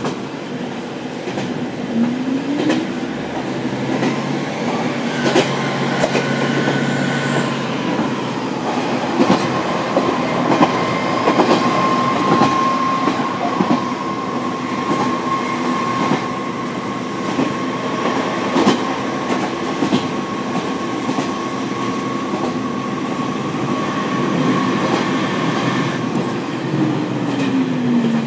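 Diesel engine of a KiHa 40 railcar running under the floor, heard from the seat above it, with the wheels clicking over rail joints. About two seconds in the engine note rises, a steady high whine holds through the middle, and near the end the engine note falls away.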